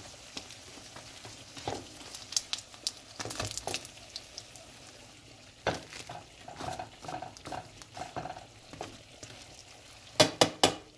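Flour dumplings frying in shallow oil in a frying pan: a steady sizzle with scattered pops and crackles. A few sharp clicks near the end are the loudest sounds.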